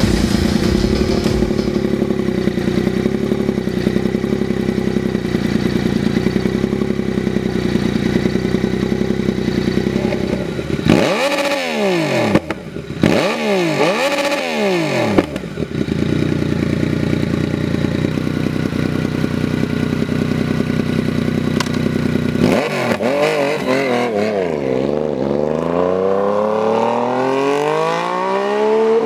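Yamaha MT-09's three-cylinder engine through an aftermarket Jeskap stainless-steel exhaust with a titanium MegaBlue tip. It runs steadily, is blipped sharply twice around the middle, settles back, and near the end climbs in a long rising rev.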